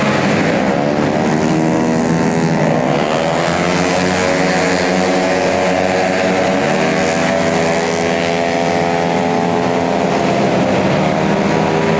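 Race-tuned 150cc automatic scooter engine running hard, its pitch dropping and climbing again about three times as the rider backs off and accelerates.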